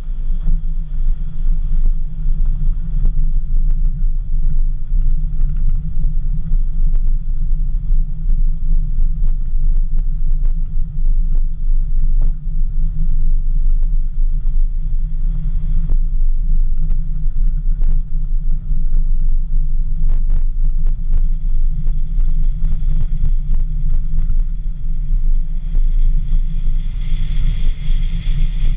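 Heavy low wind rumble and road noise on a car-mounted camera as a car drives along a gravel road, with scattered clicks of stones under the tyres. A high insect buzz comes up near the end.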